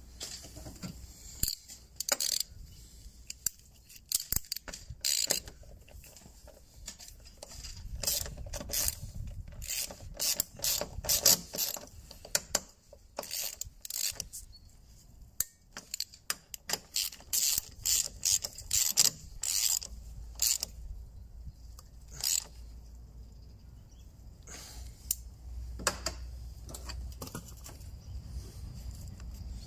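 Socket ratchet clicking in irregular runs as the nuts holding a strut brace onto a BMW E60's front strut tower are turned and tightened. The clicking comes in bursts and thins out in the last third.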